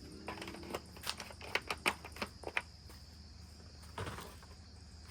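A quick series of light clicks and taps, then a single knock about four seconds in, from handling parts under the car's hood, over steady crickets chirping in the background.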